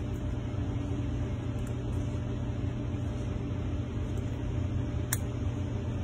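Steady low background hum, with one sharp plastic click about five seconds in: the side latches of a WMS button-deck screen housing snapping back into place over the new screen.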